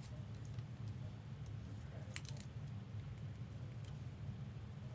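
Faint clicks and rustles of glossy trading cards being handled and flipped, a few separate ticks over a steady low hum.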